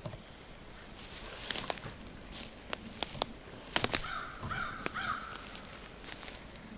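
Slow footsteps through forest undergrowth, with scattered sharp twig snaps and crackles underfoot, and a hoarse animal call about four seconds in.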